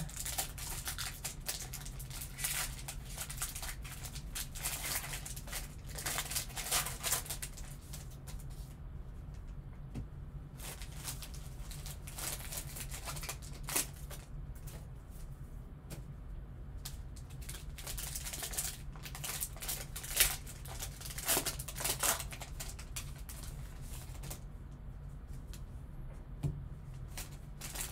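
Foil wrapper of a trading-card pack crinkling and tearing as gloved hands open it and peel it off, with cards handled and set down. A steady low hum runs underneath.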